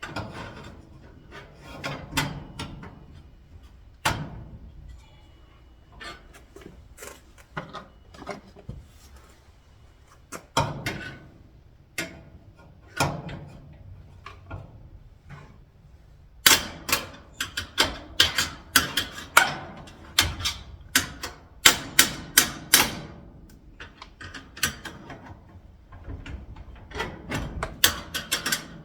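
Irregular clicks and knocks of metal lock hardware and hand tools being fitted to a garage door, sparse at first and then a dense run of sharp clicks, several a second, in the middle.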